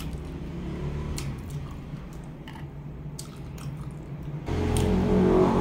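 Wet chewing and mouth sounds of a person eating boiled chicken, with small scattered clicks of the lips and teeth. About four and a half seconds in, a louder steady low drone sets in under it.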